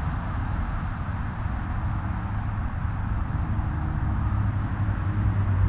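Steady traffic noise from the surrounding motorway-junction roundabout, with a low engine hum that builds about two seconds in.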